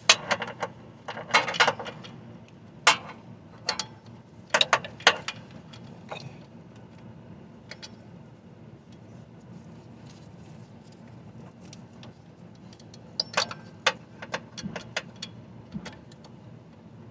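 Metal clinks and clanks of a breaker bar with a 15 mm socket being handled and fitted at the engine's belt tensioner: a cluster of sharp knocks near the start, a few lighter ticks in the middle, and another cluster near the end.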